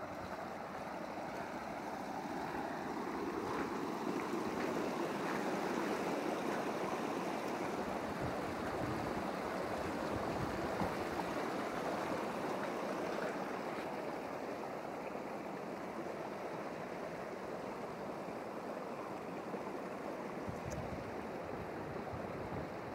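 Storm floodwater flowing: muddy runoff streaming over gravel and a swollen creek, a steady rush of water that swells a little in the first half.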